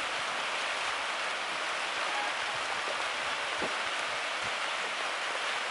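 Steady rain falling, an even hiss with a few louder drops ticking now and then.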